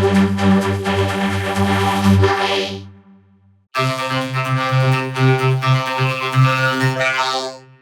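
Synthesizer-like vocoder effect: a loud, steady, buzzy chord held for about three seconds, then, after a short break, a second held chord at a different pitch that lasts until near the end.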